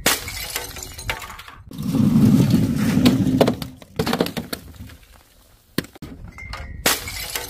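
Objects dropped from a height crashing onto paving tiles: a smash with breaking glass and clinking at the start, a dense rumbling rattle lasting about a second and a half, then several sharp separate impacts.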